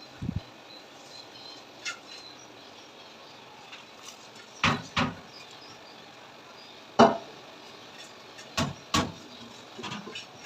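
A series of separate short knocks and clatters, about eight in all, the loudest about seven seconds in, over a faint steady background hiss.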